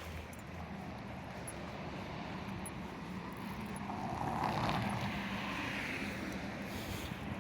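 A car passing on the street: its engine and tyre noise swells to a peak about four and a half seconds in, then fades.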